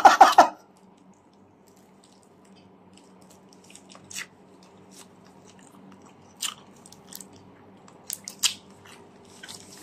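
Biting into and chewing a shawarma wrap close to the microphone: a few short, sharp crunchy clicks spread over several seconds, with a faint steady hum underneath.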